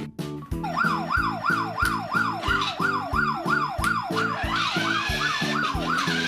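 Fast yelping siren wailing up and down about two and a half times a second, starting about half a second in, over background music with a steady beat.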